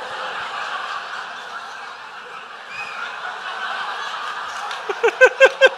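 Stand-up comedy audience laughing, a steady spread of laughter through the room. Near the end one person breaks into a quick run of short laughs.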